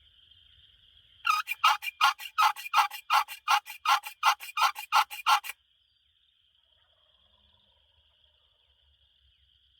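Turkey call giving a hen yelp series: about a dozen loud, evenly spaced yelps, each dropping in pitch, for roughly four seconds, then stopping abruptly. A faint steady insect trill runs underneath.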